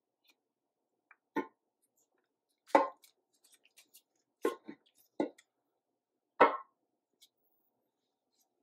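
Heavy gear assembly being worked down into a Mitsubishi DCT470 dual-clutch transmission case: about six separate metal clunks and knocks, with a few light clicks between them, the loudest a little under three seconds in and about six and a half seconds in.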